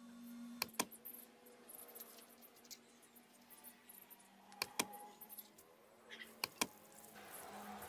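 Steel claw-hammer head clinking against a terrazzo stone floor as it is handled and set down: three quick double clinks, over a faint steady hum.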